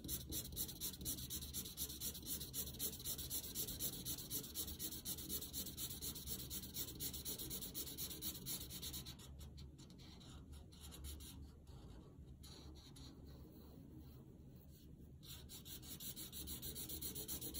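Felt-tip marker rubbing over paper in quick back-and-forth colouring strokes, about three a second. The strokes thin out and go quieter for several seconds in the middle, then pick up again near the end.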